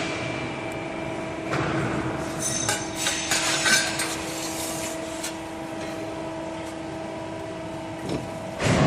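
Hydraulic press brake's pump unit humming steadily, with a few light metallic clinks in the middle. Near the end the hum gives way to a much louder rushing machine noise.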